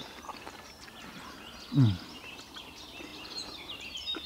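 Small birds singing and chirping in woodland, with many quick high chirps that grow busier in the second half. About two seconds in, a man gives one short hum with a falling pitch.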